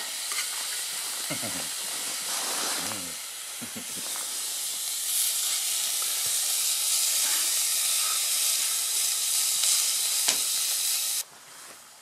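Green beans sizzling as they fry in a small pan on a portable camping stove, stirred with a spoon: a steady sizzling hiss that cuts off suddenly near the end.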